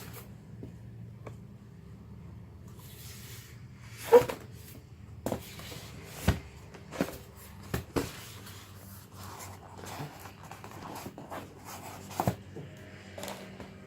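A cardboard box and its packaging being handled and opened: a series of sharp knocks and taps, the loudest about four seconds in, with light rustling between them.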